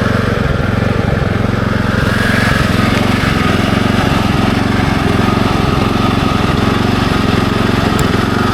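Small engine of a Kubota SPJ400 rice transplanter running steadily.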